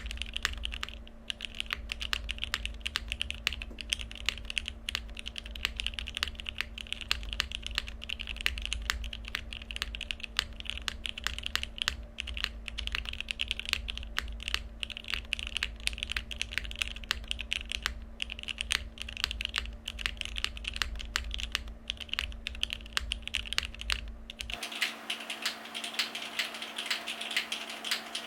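Continuous fast typing on a plateless-mounted Neo80 mechanical keyboard with vintage 1992 Cherry MX Black linear switches, lubed and filmed, under GMK keycaps. The keystrokes form a dense, steady clatter over a low hum. About 24 seconds in the hum drops out and the typing sounds brighter and thinner.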